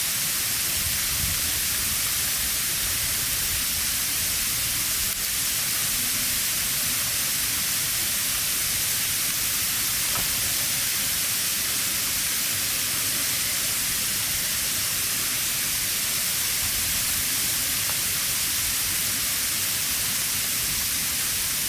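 Heavy sleet falling: a steady, dense hiss of ice pellets pelting the ground and surfaces.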